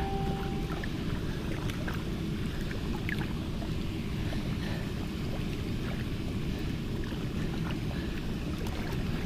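Steady low wind rumble on the microphone over water lapping, with a few small splashes from a flathead catfish held by the tail in the shallows.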